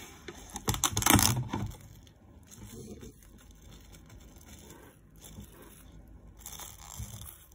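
Plastic cling wrap crinkling and crackling as it is pulled and pressed over a bowl, loudest in a dense burst about a second in, then softer rustles and a smaller burst near the end.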